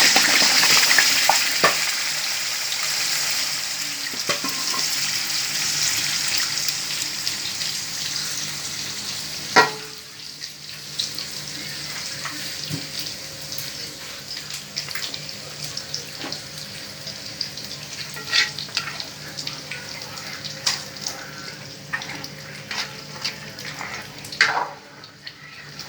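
Stew base frying in hot oil in a pot. A loud sizzle drops away after a knock about nine and a half seconds in, leaving quieter frying with scattered clicks of a spoon stirring against the pot.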